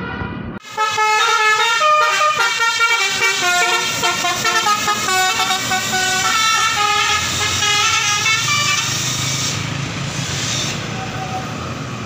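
Bus telolet basuri horn, a set of air horns switched in turn, playing a quick tune of stepping notes from just under a second in until about nine seconds. A short hiss of air follows, under the low sound of the passing bus's engine.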